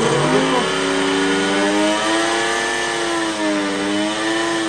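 Silver Crest HB830 blender motor switched on and running with its jar empty: a loud motor whine that climbs as it spins up at the start, wavers a little in pitch, and begins to drop right at the end.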